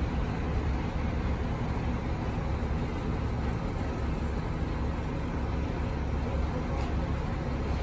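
Heavy diesel engine running steadily, a constant low rumble with no revving.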